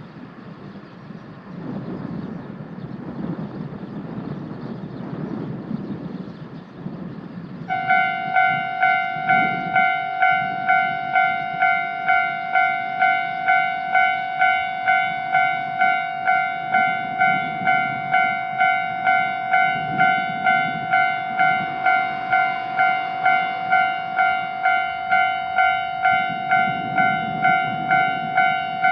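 Japanese railway level-crossing alarm ringing, starting suddenly about eight seconds in and repeating its bell tone evenly at about two strikes a second. Before it starts there is only a low rumbling noise that swells and fades.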